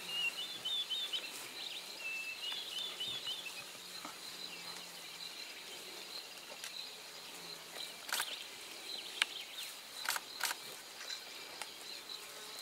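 African wild dogs feeding at a carcass, with sharp cracks and snaps about eight to eleven seconds in as they tear and crunch at it. A steady high insect drone runs underneath, and quick high chirps sound in the first few seconds.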